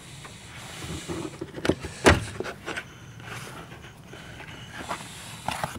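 Clicks and knocks of a VW Golf 5's plastic fuel pump access cover being unclipped and lifted off the floor pan, with handling rustle. A sharp knock about two seconds in is the loudest.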